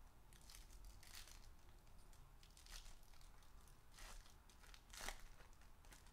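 Foil trading-card pack torn open by hand and crinkled: a few short, faint rips, the loudest about five seconds in.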